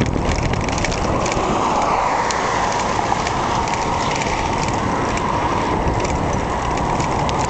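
Steady rush of headwind over the microphone of a moving bicycle, mixed with road noise and scattered light clicks and rattles.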